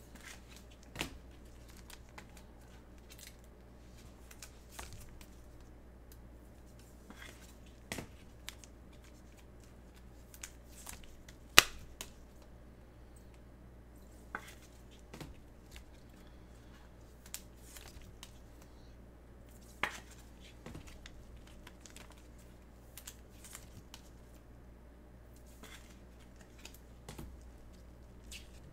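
Hands in gloves handling trading cards at a desk: scattered light clicks, taps and rustles, with one sharper click about halfway through. A faint steady low hum runs underneath.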